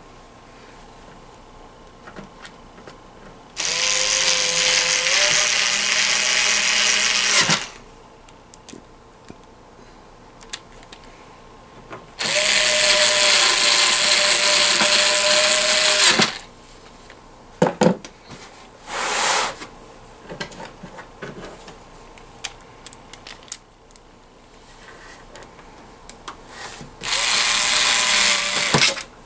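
Cordless electric screwdriver running in three bursts of about four, four and two seconds, backing screws out of a plastic stereo case. A brief whir and a few small clicks fall between the runs.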